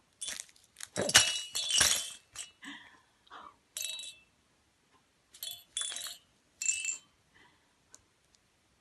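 Bursts of clattering and clinking from hard objects knocked together, the loudest run about a second in, then shorter clatters with a faint ring.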